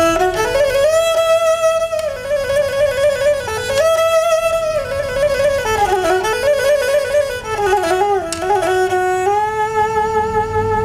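Four-string Nepali sarangi bowed solo, playing a slow melody of held notes with quick wavering ornaments and slides between pitches.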